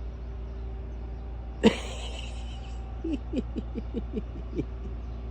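A dog gives one sharp bark, then a quick run of about eight short, low whines that each fall in pitch.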